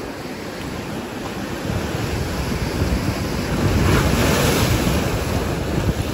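Ocean surf washing in over rocks, swelling to a wave crashing against a rock about four seconds in, then easing. Wind buffets the microphone with a low rumble.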